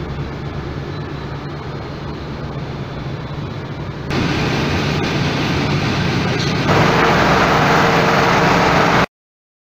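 Steady drone of a thermal desorption plant's running machinery, with a low hum underneath. It grows louder in two steps, about four seconds in and again near seven seconds, and cuts off suddenly a little before the end.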